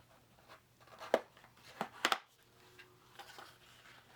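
Cardboard box being handled and worked open from the side. There are several sharp taps and knocks of cardboard, the loudest between one and two seconds in, then quieter rustling.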